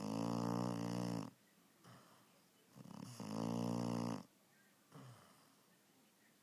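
Sleeping Labrador puppy snoring: two loud, buzzing snores about three seconds apart, each lasting around a second and a half, with quiet breathing in between.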